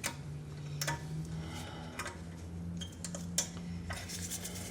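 Light, irregular metallic clicks of homemade circlip pliers working at a circlip in a Suzuki Samurai front steering knuckle, with a steady low hum underneath.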